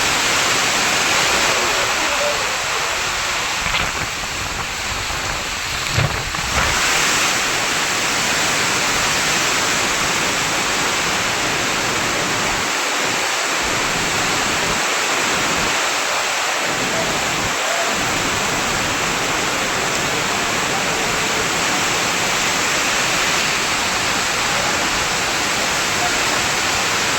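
Heavy rain falling in a steady, loud downpour, with a brief thump about six seconds in.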